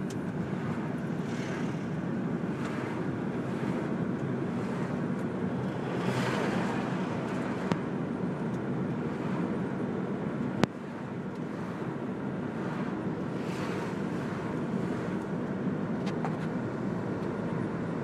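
Road noise heard from inside a moving car: a steady tyre-and-engine hum, swelling into whooshes as oncoming vehicles pass. A single sharp click sounds about ten and a half seconds in.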